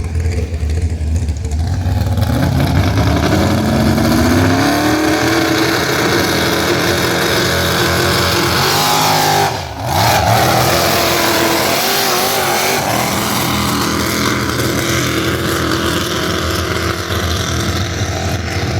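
Competition pulling tractor's engine at high revs during a pull, climbing in pitch over the first few seconds, then briefly dropping out about halfway through before picking back up. The engine seems to be struggling, which the spectator puts down to trouble pulling fuel.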